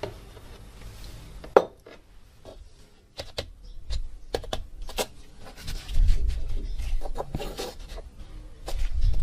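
Metal oil-lamp parts being handled: a sharp clink about one and a half seconds in, then a run of knocks, clinks and scraping that grows busier and louder.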